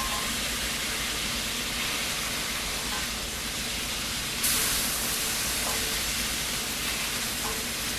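Baby back ribs and onions sizzling in their own grease in a pot, a steady hiss that grows louder about halfway through.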